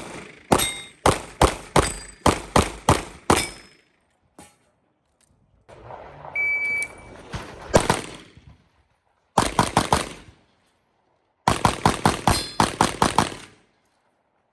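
Rapid strings of pistol shots from a .38 Super open-division race gun: about seven fast shots, then after a pause a half-second electronic shot-timer beep, a single shot, a quick burst of about six, and near the end a longer string of about ten.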